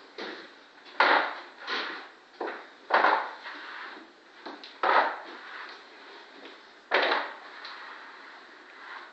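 Refina skimming spatula on an extension pole sweeping across wet plaster on a ceiling, a series of scraping strokes, the strongest about every two seconds with lighter passes between. The spat is flattening the skim coat.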